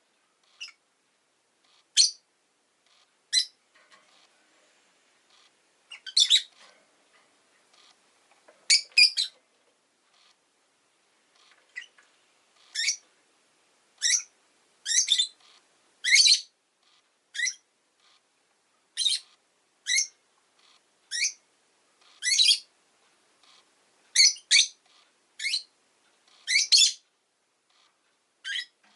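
Rosy-faced lovebird (Agapornis roseicollis) giving short, sharp, high chirps, about one a second, with short quiet gaps between.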